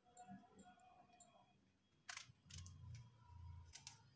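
Near silence, with a few faint clicks and taps from a kitchen knife cutting into a small round brinjal held in the hand: one about two seconds in and two close together near the end. A faint low hum runs through the second half.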